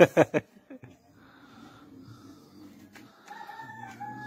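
A few sharp, loud clicks or knocks in the first half second. A rooster then crows about three seconds in, one drawn-out call that holds and falls away at the end.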